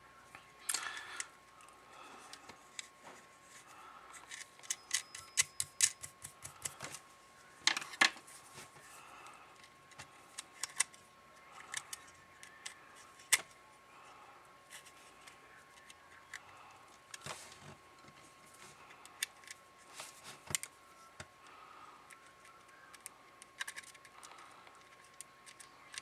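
Small screwdriver and fingers working the hardware on the top panel of a plastic handheld radio: scattered light clicks and scrapes of metal on plastic, with a quick run of ticks about five seconds in and a few sharper single clicks later.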